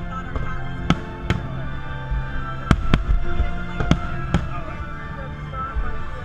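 Aerial fireworks shells bursting: about six sharp bangs spread over the first four and a half seconds, over steady music.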